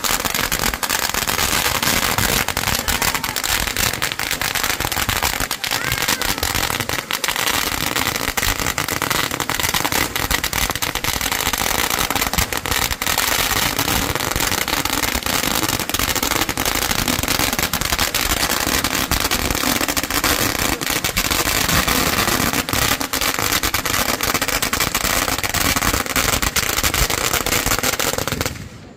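A long string of firecrackers going off on pavement: a continuous, rapid run of pops that stops abruptly near the end.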